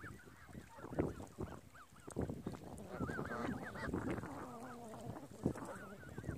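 A flock of Canada geese calling, a loose chatter of short honks that thickens into a quick run of calls about three seconds in.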